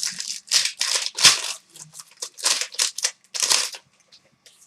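Trading cards being handled and slid against one another as a pack is gone through: a quick run of rustling, swishing strokes that dies down near the end.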